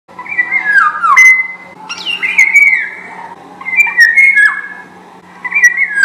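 Golden oriole singing: four short, fluty whistled phrases of gliding notes, one every second and a half or so, with a few short high clicks among them.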